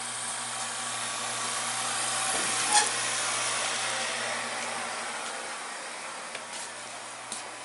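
Steady hiss with a low hum from the launcher's vacuum pump and air heater left running, fading slowly; a single knock about three seconds in and a couple of faint clicks near the end.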